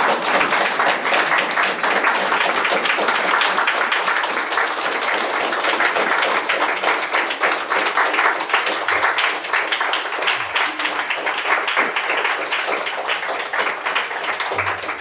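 Small seated audience applauding steadily, a dense patter of many hands clapping.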